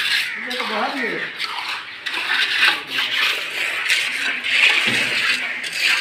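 Steel hand trowel scraping and smoothing a wet cement-and-chips (terrazzo) floor, a gritty scrape in repeated strokes. A person's voice is heard briefly about half a second in.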